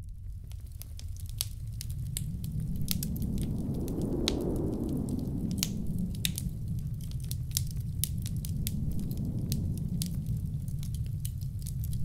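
Wood fire crackling with frequent sharp, irregular pops over the low, steady wind noise of a blizzard, which swells about four seconds in and eases again.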